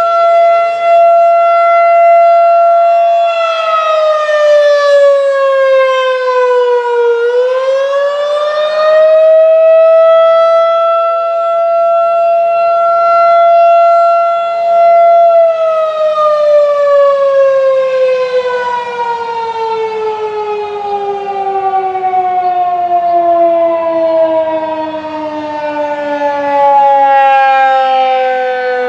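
Federal Signal 2001-DC outdoor warning siren sounding a custom attack signal: a steady high tone that dips in pitch and climbs back about four to ten seconds in, holds again, then falls slowly and steadily in pitch from about halfway on. Its loudness swells and fades throughout.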